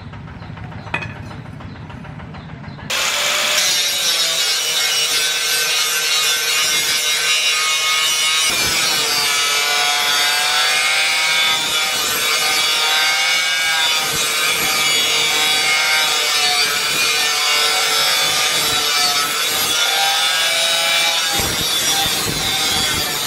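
Angle grinder grinding the steel of a forged machete blade. It starts about three seconds in as a loud, rough grinding with a whine that wavers in pitch.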